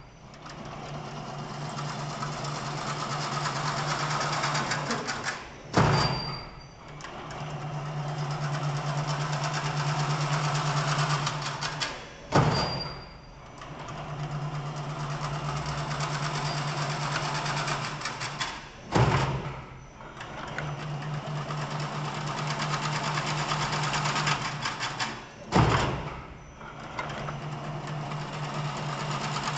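Chain-link fence weaving machine running: a dense, rapid mechanical clatter over a steady low hum, broken by a loud clank about every six and a half seconds, five times in all, each followed by a short lull before the clatter builds again.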